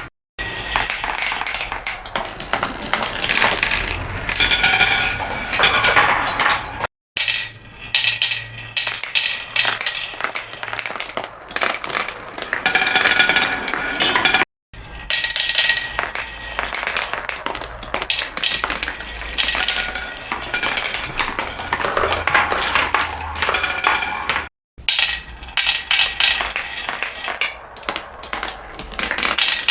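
Many marbles rolling and clattering along a marble-run track, a dense stream of clicks and clinks. The sound drops out abruptly for a moment three times.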